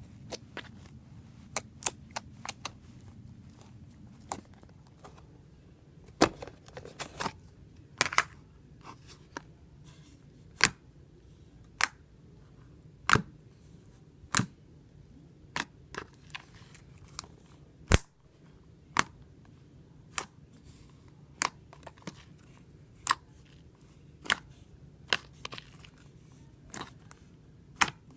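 Homemade glue-and-borax slime being squeezed and kneaded by hand, giving sharp, irregular snaps and pops as trapped air bursts, about one a second.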